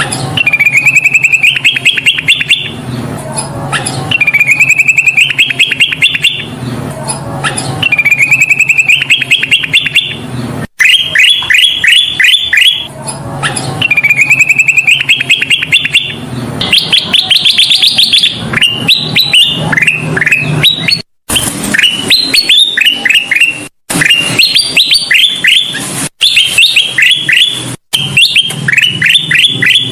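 Recorded song of a kutilang emas: loud phrases of rapid chirping notes, repeated every couple of seconds, broken by a few sudden short silences where the recording cuts.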